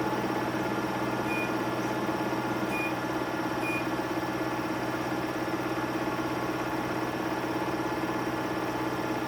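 Samsung Eco Bubble washing machine running with a steady mechanical hum, and a few faint short high-pitched tones.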